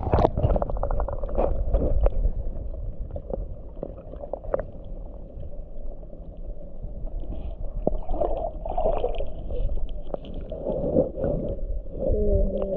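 River water gurgling and sloshing close to the microphone, with scattered knocks and a steady low rumble. Muffled wavering sounds come in over the last few seconds.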